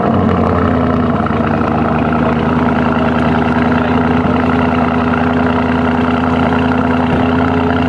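Lamborghini Urus twin-turbo V8 idling steadily.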